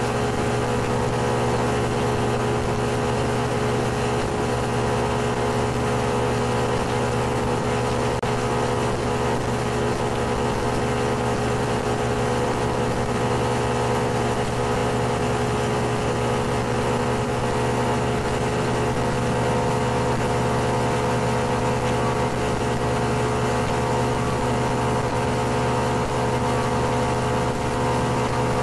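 Boat engine running steadily at a constant speed, a loud even hum that does not change.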